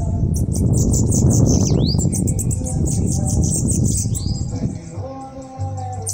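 Caged bananaquit (sibite) singing a rapid, high twittering song with a couple of downward-swooping notes. A loud low rumble underneath dies away about four and a half seconds in.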